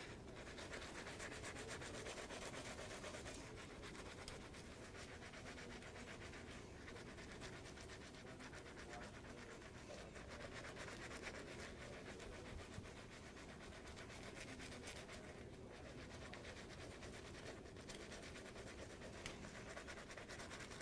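Surgical scrub brush's bristles scrubbing back and forth over soapy fingers: a faint, steady, bristly rubbing with a few short breaks.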